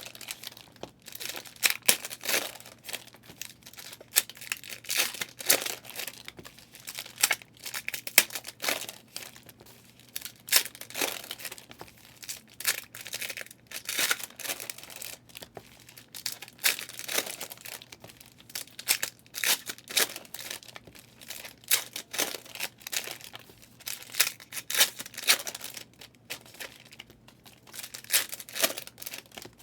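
Wrappers of 2023 Legacy NFL hobby trading card packs being torn open and crinkled by hand, an irregular run of sharp tearing and crinkling noises that comes and goes throughout.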